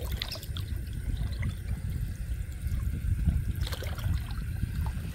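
Hands sloshing and splashing through shallow water and mud, groping along the bottom, with scattered small splashes over a steady low rumble.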